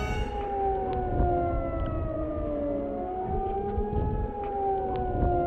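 Outro of an indie rock track: several wailing, siren-like tones slide slowly downward, rise again a few seconds in, then fall once more, over a low rumble. The sound is muffled, its high end cut away shortly after the start.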